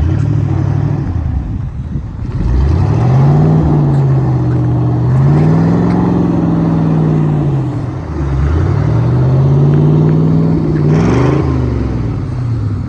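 Car engine revving hard in three surges, its pitch climbing, holding and dropping each time, as it strains under load during a tow-strap recovery of a car stuck on ice.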